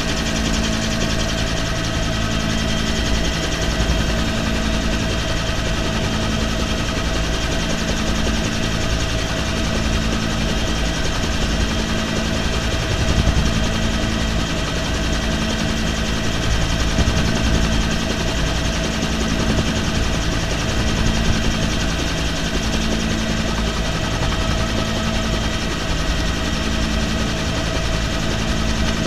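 Helicopter's turbine engine and rotor running steadily in flight, heard inside the cabin with its door open. There is a constant rumble under several steady whining tones, and a low hum swells and fades about once a second.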